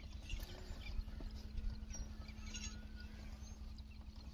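A wet gill net being hauled by hand over the side of a small boat, with light, irregular knocks and clicks over a steady low hum and a low rumble.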